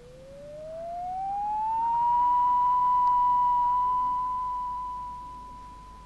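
Electronic title-sting tone that slides smoothly up in pitch for about two seconds, then holds one steady high note. It swells in the middle and fades away near the end.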